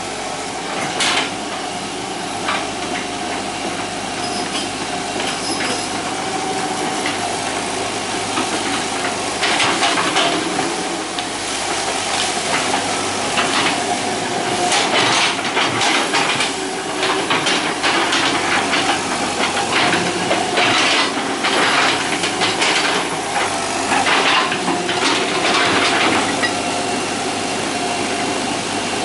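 Hitachi EX120 hydraulic excavator working: its diesel engine runs steadily under load with a constant high whine, while the bucket scrapes and presses loose soil with many short clanks and scrapes, more frequent in the second half.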